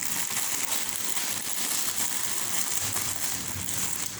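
Plastic packaging crinkling and rustling as a toy is handled and unwrapped: a continuous crackly rustle of many small ticks.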